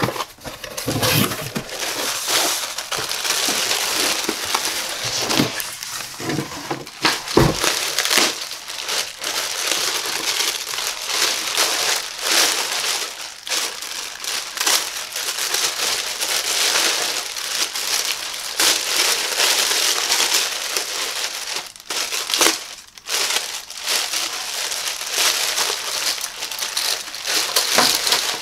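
Clear plastic packaging bag crinkling almost without pause as hands pull it open and handle it, with the cardboard shipping box's taped flaps worked at the start and a single low thump about seven and a half seconds in.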